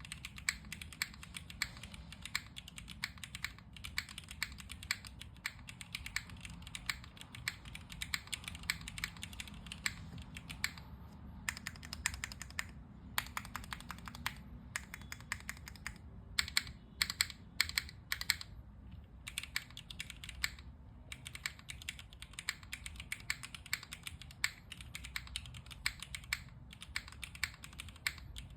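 Typing on a Neo60 Core 60% mechanical keyboard: a fast, steady stream of keystroke clicks, with a few brief pauses about midway through.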